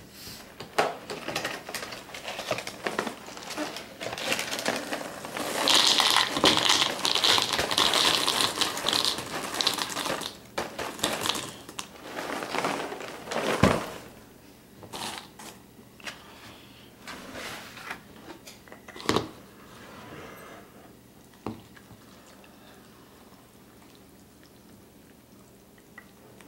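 Cinnamon Toast Crunch being handled: its plastic inner bag crinkling and the dry cereal squares clattering into a plastic bowl. The crinkling and clatter are loudest for several seconds about a quarter of the way in, with scattered clicks and one sharp knock around halfway, then only occasional light ticks before it goes quiet.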